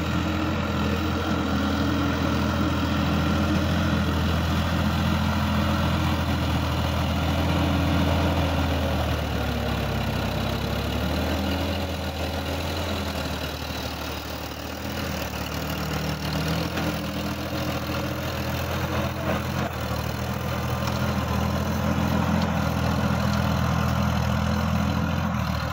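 Sonalika DI-50 RX Supreme tractor's diesel engine running steadily while driving a rotary tiller through the soil. The engine note and loudness dip for a few seconds about halfway through, then pick back up.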